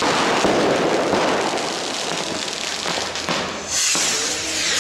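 Massed fireworks going off at once: a continuous run of firecracker bangs and crackling, with rockets bursting. It dips slightly, then comes back loud again about four seconds in.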